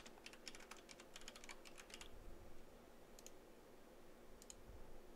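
Faint computer keyboard typing: a quick run of keystrokes over the first two seconds, then two single clicks later on.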